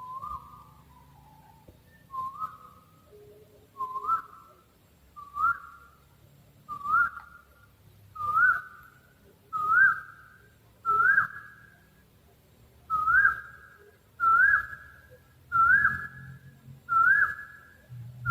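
An owl calling a single short, rising whistled note over and over, about once every second and a half, some thirteen times. The notes grow louder over the first half and creep slightly higher in pitch.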